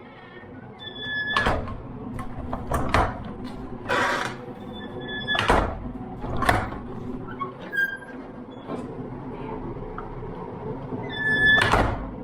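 A heavy door being shut repeatedly, banging into its frame several times, with a short squeak just before some of the bangs. These are tests of whether the latch now catches in the reworked striker hole.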